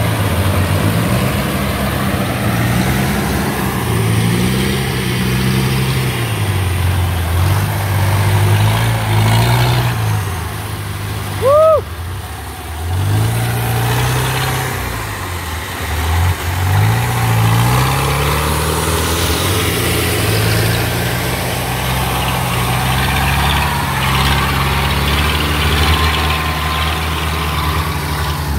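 Engines of rice-harvest machinery, a combine harvester and tracked rice-sack carriers, running under load, their speed rising and falling again and again. A brief high chirp sounds about twelve seconds in.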